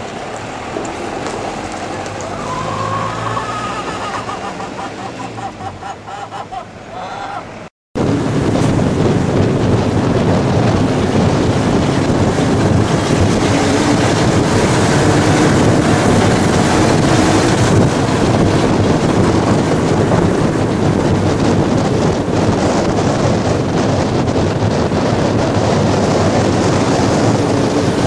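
Quiet street background at first; then, after a sudden cut about eight seconds in, the loud, steady rushing noise of a moving vehicle on the road, with wind over the microphone.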